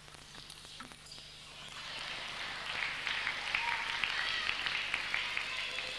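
Table tennis ball clicking off bats and table in the first second, then a crowd applauding and cheering, with high whistles, starting about two seconds in.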